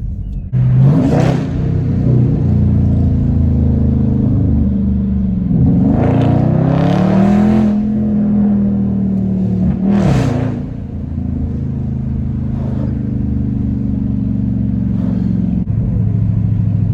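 Dodge Charger Scat Pack's 392 (6.4-litre) HEMI V8 running, with three surges of acceleration: about a second in, around six to seven seconds, and around ten seconds. Each rises in pitch and then settles into a steady drone.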